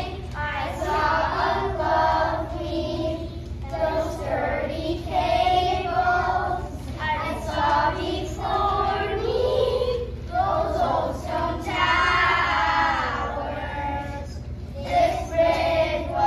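A group of children singing together as a choir, holding sustained notes with short breaks between phrases.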